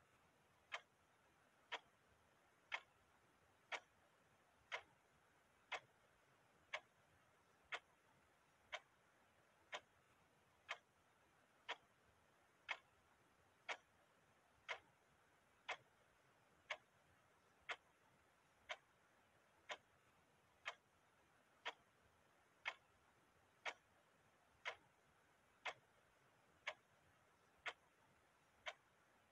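Clock ticking steadily, one sharp tick about every second.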